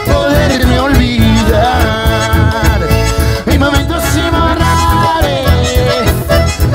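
Live band playing an upbeat Latin dance tune, with button accordion and bandoneón over keyboard, electric bass, acoustic guitar and a steady beat.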